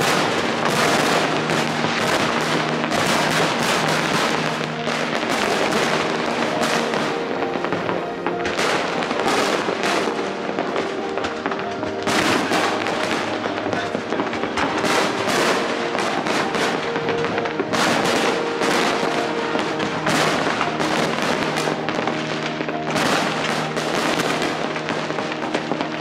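Dense fireworks display: a continuous barrage of bangs and crackles from aerial shells bursting, with no pause. Steady sustained musical tones run underneath throughout.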